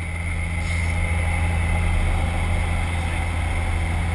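Steady drone of a jump plane's engines and propellers heard inside the cabin: a deep hum with a fainter high whine over it.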